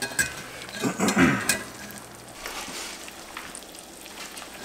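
Eggs frying in butter and oil in a cast iron skillet: a steady sizzle with small crackles and pops. A short bit of voice is heard about a second in.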